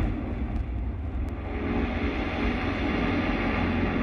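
Deep, steady rumbling sound effect from a light show's soundtrack played over outdoor loudspeakers, with faint held tones coming in after about a second and a half as the music builds.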